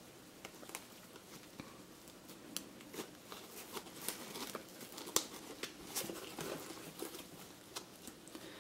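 Nylon plate-carrier fabric rustling and scraping as a plastic buckle is worked into its sleeve by hand, with scattered small clicks and taps.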